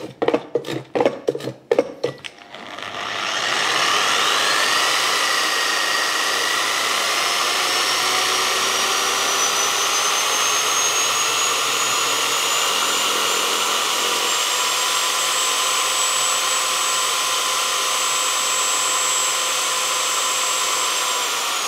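A few quick plastic clacks of a pad washer's hand pump, then an electric car polisher spinning a wet microfibre pad inside the pad washer. Its whine rises over several seconds as the speed is ramped up gradually to fling the cleaning fluid out of the pad, then holds steady.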